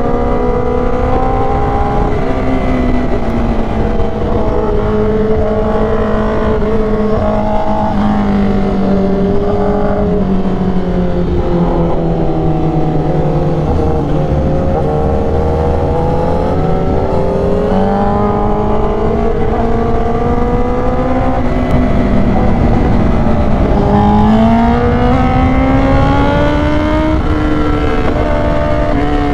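Honda CBR1000RR-R Fireblade SP's inline-four engine running through an SC Project exhaust with the catalytic converter deleted, under way with wind rush. Its note sinks slowly through the first half as the bike eases off, then climbs again about two-thirds of the way in as it accelerates.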